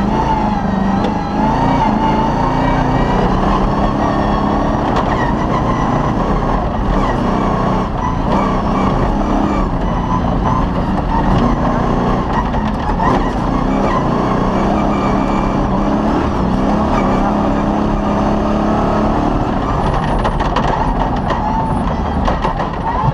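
Off-road rally car's engine running hard at speed, heard from inside the cabin, its pitch rising and falling a little with the throttle. Frequent short knocks and rattles come from the car jolting over the rough dirt track.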